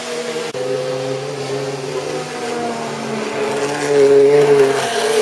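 Model train locomotive running on the layout: a steady motor hum with several held tones, with a brief break about half a second in, growing louder about four seconds in as the engine comes out of the tunnel.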